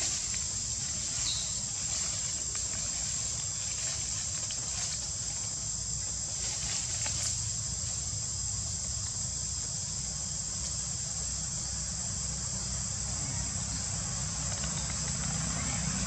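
Steady high-pitched drone of insects in the forest, with a low rumble underneath.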